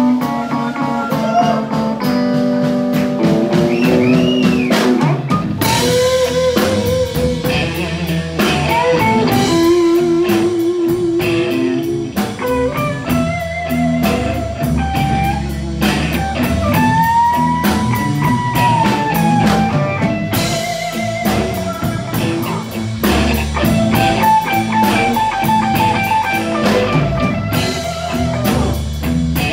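Live band music in a bluesy rock vein: a guitar plays a melody with bent, wavering notes. Drums and bass fill in underneath from about five seconds in.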